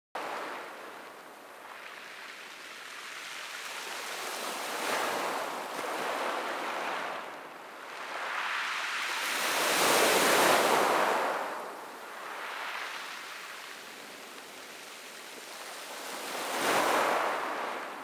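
Small sea waves breaking and washing up a pebble beach, the surf rising and falling in surges every few seconds, the loudest about ten seconds in.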